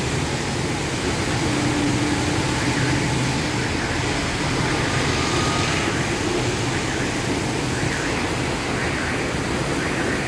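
Heavy rain falling steadily: an even hiss that does not let up.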